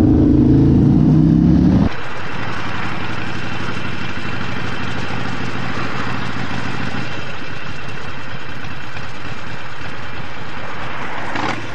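Cruiser motorcycle engine running with a deep, even beat for about two seconds, then an abrupt change to a steady rush of wind and road noise with engine hum from a motorcycle riding through traffic.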